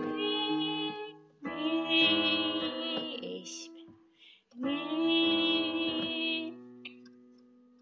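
A voice sings a slow hymn melody in long held notes, with chords on a digital piano underneath. One phrase ends about a second in, two more follow, and the last piano chord rings on and fades near the end.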